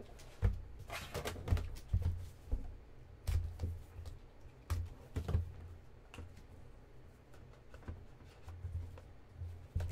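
Trading cards and their packaging handled on a tabletop: irregular soft clicks, taps and low knocks.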